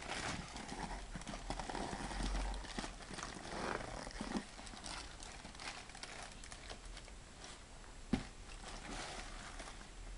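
Packaging and an item being handled: rustling with irregular light knocks and taps, and one sharper knock about eight seconds in.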